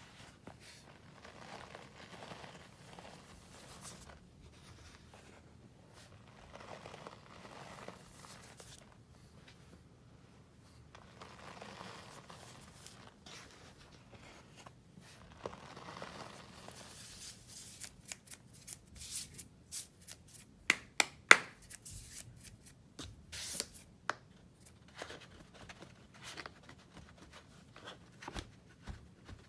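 Hands squeezing and crumbling packed scouring-cleanser powder (Ajax and Comet) in a plastic tub, with soft crunching and rustling. About two-thirds of the way through, sharper taps and clicks set in, loudest a few seconds later, as the powder is patted and handled at the tub's edge.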